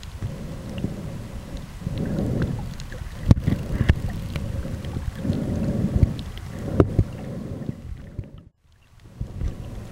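Muffled underwater noise picked up by a small point-and-shoot camera sealed in a soft waterproof bag while snorkeling: a low rumble of moving water that swells every few seconds, with a few sharp knocks of the bag and camera handling. The sound drops out almost completely for a moment near the end.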